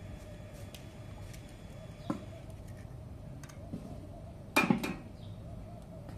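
Eggs being cracked against the rim of a ceramic bowl: a light tap about two seconds in, then a louder cluster of cracking knocks a little before five seconds, over a faint steady hum.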